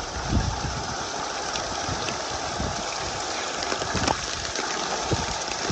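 Heavy storm rain falling with a steady hiss, with a few low thumps scattered through.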